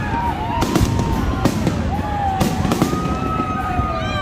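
Fireworks going off: a string of sharp bangs, several to the second at times, with long wavering whistle tones over them.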